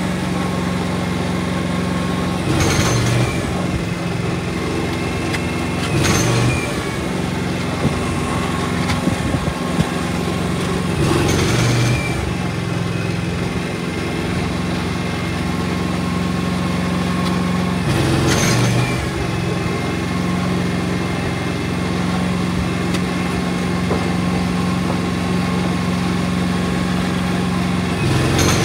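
An engine running steadily, with a brief louder surge every few seconds.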